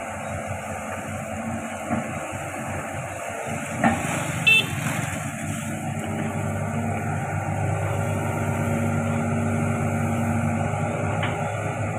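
Hitachi Zaxis 110 excavator's diesel engine running steadily and coming under more load after about four seconds, with a few knocks and a brief high tone about four and a half seconds in.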